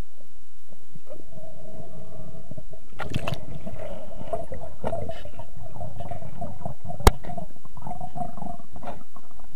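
Muffled underwater gurgling and water movement heard through a camera's waterproof housing, with a single sharp crack about seven seconds in.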